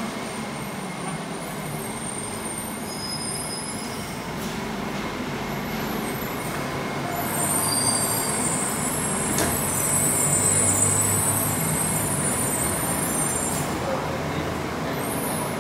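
Bukit Panjang LRT light rail vehicle, a rubber-tyred Bombardier C801-series people mover, running at the station platform with a steady rumble. It grows louder from about seven seconds in, with a high-pitched whine over it that fades near the end.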